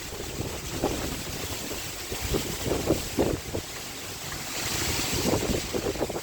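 Water from a koi pond's waterfall splashing and gurgling steadily into the pond, with irregular splashes and a brief hissy swell about five seconds in.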